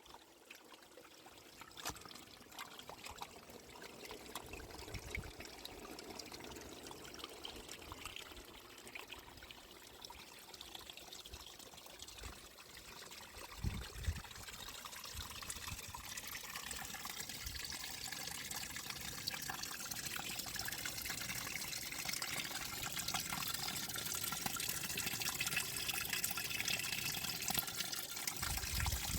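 Water trickling and pouring, growing steadily louder through the second half, with a couple of sharp knocks midway.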